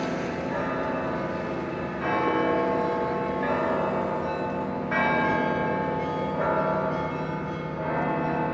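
Russian Orthodox church bells ringing: several bells struck in turn, a fresh strike about every second and a half, each ringing on over the others above a steady low bell hum.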